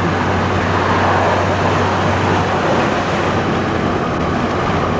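Steady rumbling ride noise of a moving train, with a constant low hum underneath.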